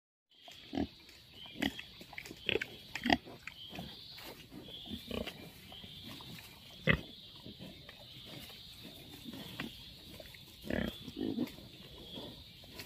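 Black pigs grunting in short, irregular bursts while foraging, with a few sharper, louder grunts scattered through.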